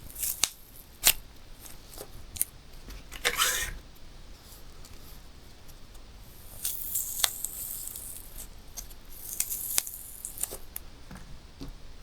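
Balloons being popped: a run of sharp pops, the loudest about a second in, with stretches of rustling and rubbing of the balloon rubber between them.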